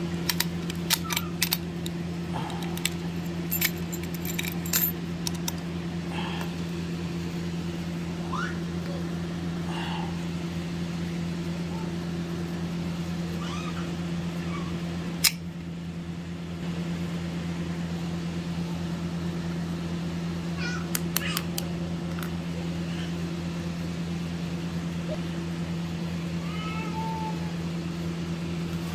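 A steady low hum. Over it come sharp metallic clicks and jingles as a brass padlock is opened and its keys are handled in the first few seconds, with more clicks about 21 seconds in. A few short, faint high-pitched calls come now and then.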